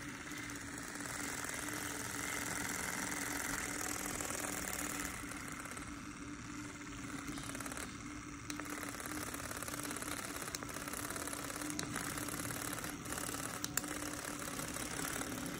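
Small battery motor of a cordless handheld milk frother running steadily with its whisk spinning in open air, a steady hum. One sharp click near the end.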